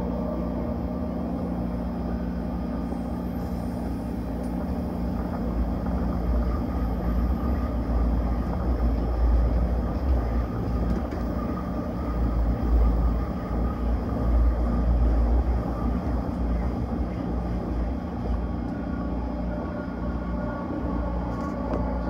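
Vitória a Minas passenger train running on the rails, heard from on board: a steady low rumble with a faint hum, the rumble growing louder for several seconds in the middle.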